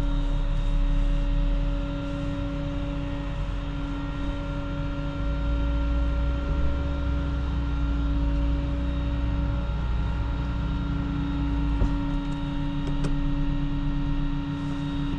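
A vehicle engine running steadily, with a constant whine held at one pitch above a low rumble, as a car is loaded onto a flatbed tow truck. The whine dips briefly about ten and again about twelve seconds in.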